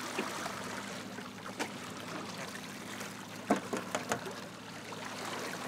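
Water sloshing and lapping against a small boat's hull, over a faint steady low hum. A few sharp clicks or knocks come through, at about a second and a half, three and a half, and four seconds in.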